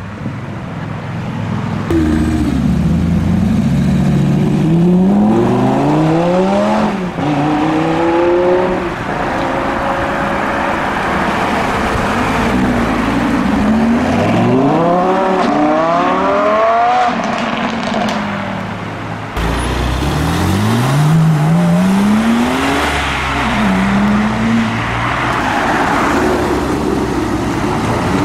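Performance car engines accelerating away, their pitch climbing and dropping back several times as they rev up through the gears.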